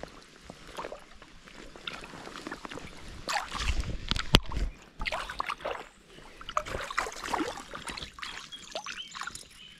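Creek water splashing and sloshing as a rubber landing net is dipped and a brown trout is released, with a sharp click about four seconds in.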